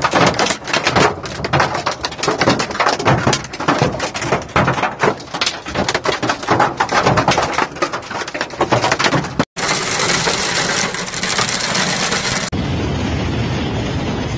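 Hailstones hammering on a car's windshield and roof, heard from inside the car: a dense, irregular clatter of hard impacts. After about nine and a half seconds the sound cuts to a steady heavy hiss of hail and rain.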